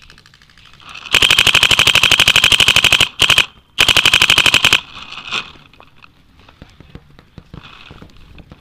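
Dye DM12 electronic paintball marker firing rapid strings of shots: a two-second stream, a short burst, then about another second of fire. Fainter pops from other markers on the field follow.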